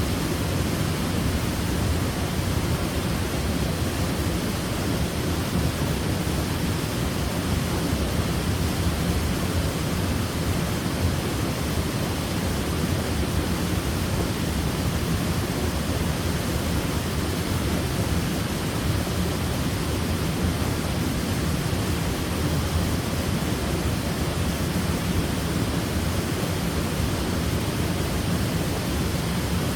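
Waterfall, water falling and pouring in a steady, unbroken rush with its strongest energy low down.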